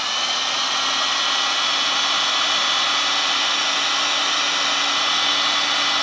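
Electric heat gun blowing hot air onto heat-shrink tubing over a crimped wire connector. It comes up to full speed in the first half second, then runs steadily as an even rush of air over a faint motor hum.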